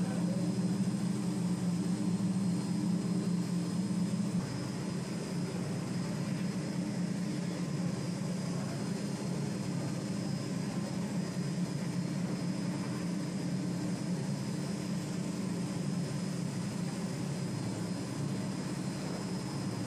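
Two-phase palm oil decanter centrifuge running at speed: a steady low hum from the spinning bowl and its drive motor, with a faint high whine over it. The hum drops a little in level about four seconds in and then holds steady.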